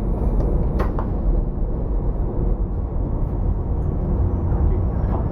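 Cargo ship's diesel machinery running steadily onboard under way, a heavy low drone with a brief knock about a second in.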